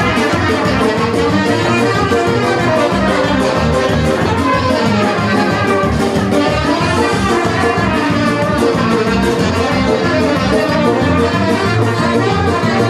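Loud dance music led by brass instruments, with a steady beat.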